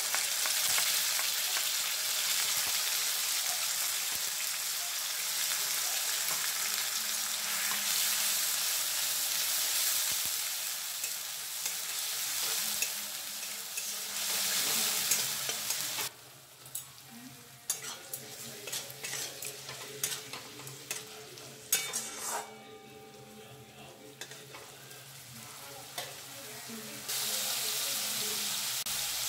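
A ground paste sizzling as it hits hot oil in a kadai and is stirred with a spatula. About halfway through the sizzle dies down, leaving scattered scrapes and taps. It rises again near the end as chopped tomato goes into the pan.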